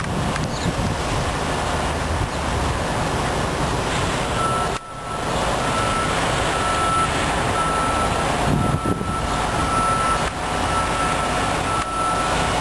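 A truck's reversing alarm beeping steadily, one beep a little less than every second, starting about a third of the way in, over a steady background of engine noise.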